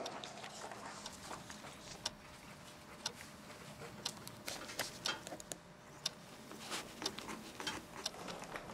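Pens scratching and tapping on notebook paper: faint, irregular clicks and scratches of several people writing out math working.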